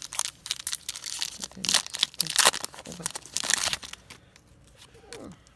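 Foil wrapper of a Pokémon trading-card booster pack crinkling and tearing as it is opened by hand, dying away about four seconds in.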